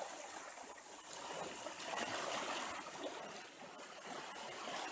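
Small waves washing softly onto a sandy beach, swelling and easing off twice.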